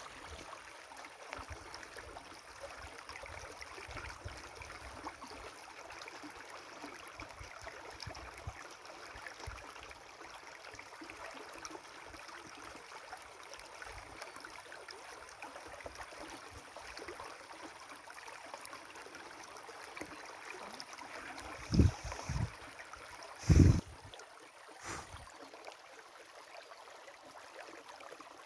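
River water flowing steadily. A few short low thumps come just past twenty seconds in, the loudest a little later.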